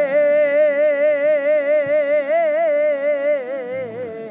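A singer holding one long, wavering note with heavy vibrato in a Punjabi folk song, the pitch sagging slightly and fading near the end.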